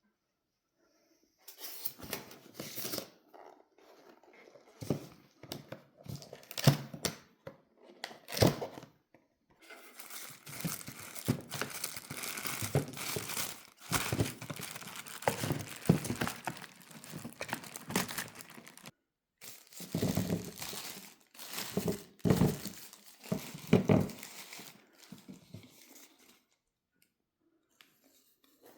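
Packaging being opened by hand: irregular tearing and crinkling of wrapping with scattered knocks, in fits and starts, pausing briefly about two-thirds of the way through.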